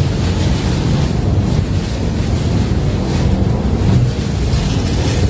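Wind buffeting the microphone, a steady loud low rumble.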